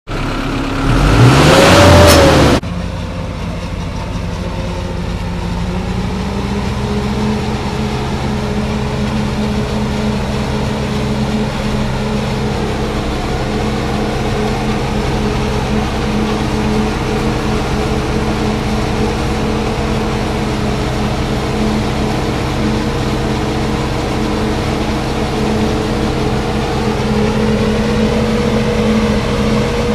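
Diesel tractor engines and a tractor-drawn two-row corn silage harvester running steadily while chopping maize, with a slight rise in engine pitch about six seconds in. It opens with a loud burst of about two seconds with a rising and falling tone.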